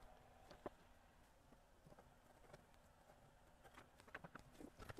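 Near silence with a few faint taps and clicks, most of them near the end: a circuit board being handled and shifted on a workbench.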